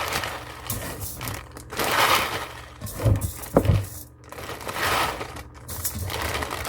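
Rustling and crinkling handling noises in swells about a second long, with two sharp knocks about halfway through.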